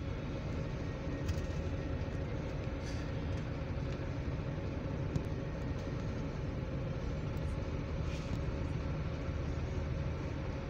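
Steady low engine rumble heard from inside a large vehicle's cabin while it sits in slow traffic, with a few faint clicks.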